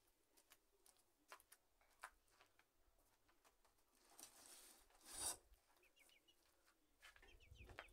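Mostly near silence with faint scattered clicks. About four seconds in comes a brief scraping rustle as a green plastic basin is picked up from among the flower pots.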